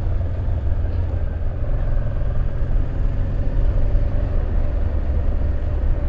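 Honda Transalp motorcycle running steadily under way, its engine drone mixed with a low, even wind rumble on the microphone.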